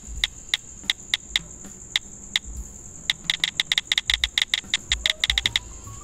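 Smartphone keyboard app's key-press sound effect, the 'Mode I' click sound, ticking once for each key typed. The ticks come a few a second at first, then quicken into a fast run of typing about three seconds in that stops just before the end.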